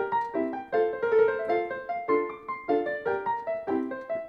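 Background piano music, notes and chords struck about twice a second.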